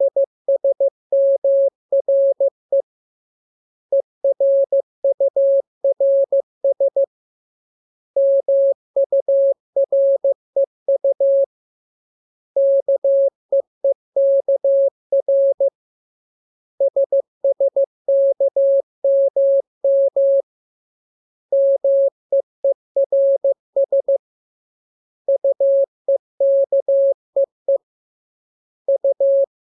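Morse code practice signal: a single steady mid-pitched tone keyed on and off into dots and dashes, spelling groups made from the letters K, M, U, R, E and S. The groups last about three seconds each, with a silent pause of about a second between them.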